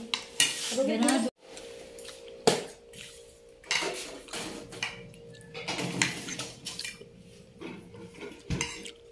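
Metal forks and spoons clinking and scraping on ceramic plates in a string of short, irregular clicks, with one sharper clink about two and a half seconds in.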